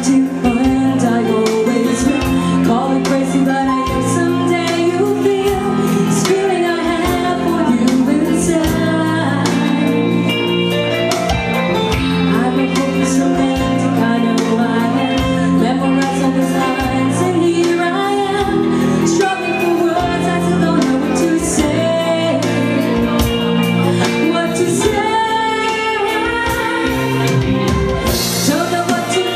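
A live band playing a pop ballad with a singer, drums keeping a steady beat.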